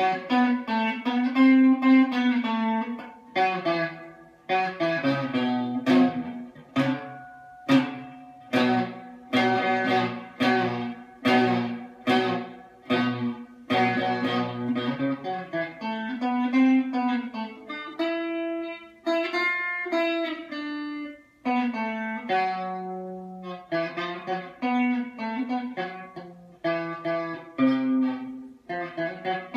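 Electric guitar played with a quick run of picked notes, with a few longer held notes about two-thirds of the way through.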